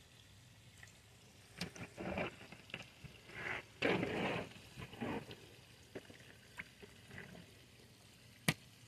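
Wet handling sounds of raw fish fillets being picked up and laid down on a plastic cleaning table: a cluster of soft, irregular slaps and squelches through the middle, then a single sharp click near the end.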